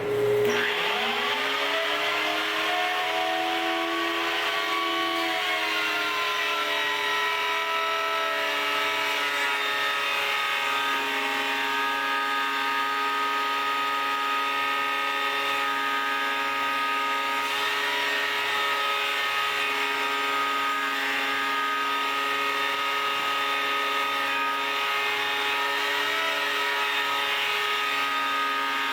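Dust collector and thickness planer running. A motor spins up in the first few seconds, its pitch rising and settling, and the machines then hold a steady, many-toned whine.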